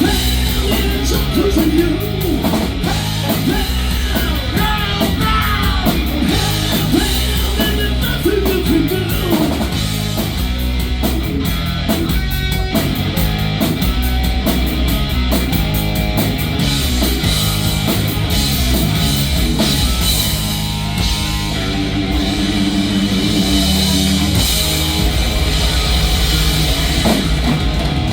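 Live rock band playing loudly with no vocals: electric guitar lead with bending notes over drum kit and bass, then held chords in the second half.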